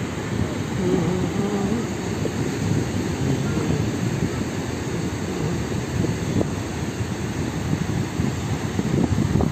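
Steady low rumble of surf breaking on a sandy beach, mixed with wind on the microphone.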